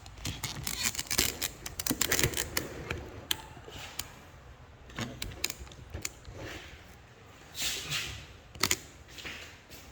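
Small handling clicks and taps, coming thick and fast over the first three seconds, then a few scattered clicks and a short noisy burst about two-thirds of the way through.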